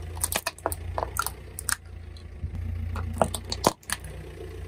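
A car tire slowly rolls over and crushes a small plastic toy figure on asphalt, giving a string of sharp cracks and snaps; two of the loudest come a little past three seconds in. The car's engine idles as a low steady hum underneath.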